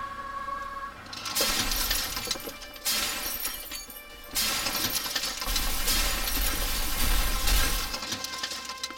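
Crashing, shattering sound effect of the liner striking the iceberg, in three long surges of breaking and grinding noise, over soft music.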